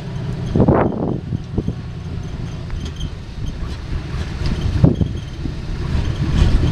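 1967 Chevrolet C50 grain truck's gasoline engine running steadily as the truck drives, with gusts of wind buffeting the microphone, strongest near the end.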